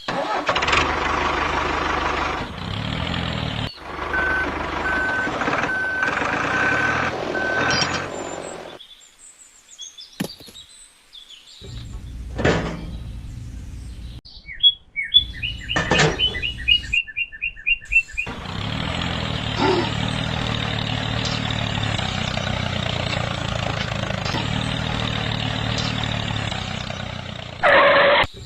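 Toy vehicle motor whirring, with a regular beeping tone in the middle of the first stretch. After a short lull with a few knocks comes a quick run of chirps, then a long stretch of steady whirring.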